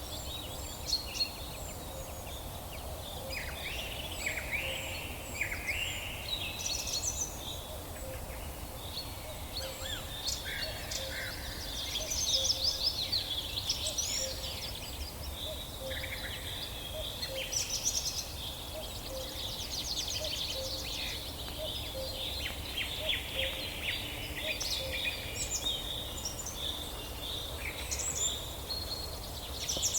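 Many birds chirping and calling together, short quick notes overlapping throughout, over a steady low background rumble.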